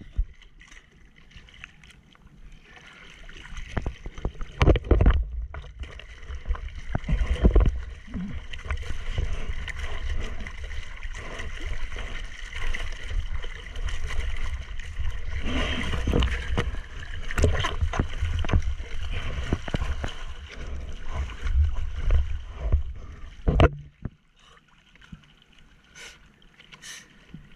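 Seawater splashing and washing over a surfboard as it is paddled by hand through choppy waves, with repeated sudden splashes over a low rumble of water and wind on the microphone. The splashing dies down to a quieter wash near the end.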